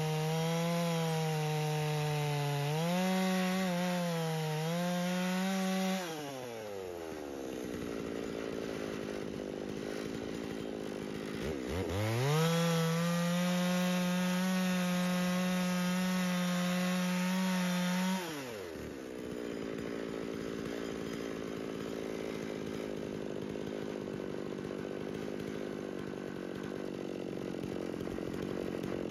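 92 cc G660 two-stroke chainsaw in a chainsaw mill, running at full throttle as it rips lengthwise through a thick cherry slab, its pitch wavering with the load. About six seconds in the throttle is let off and the revs fall away. It is opened up again near twelve seconds and held steady, then released again around eighteen seconds, leaving a lower, quieter running sound.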